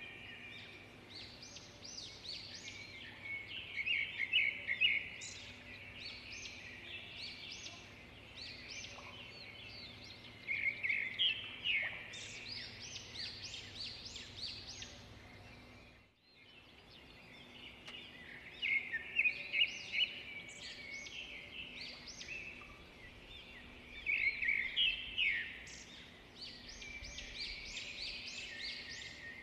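Small birds chirping in the background, in quick bursts of repeated chirps every few seconds over a faint steady background. The sound drops out briefly about halfway through.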